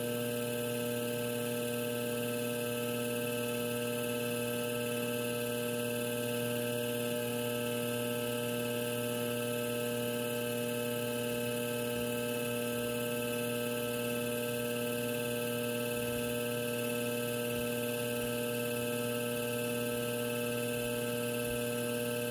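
Electric potter's wheel motor humming steadily while the wheel spins at an even speed, a constant drone of several tones that never changes in pitch or level.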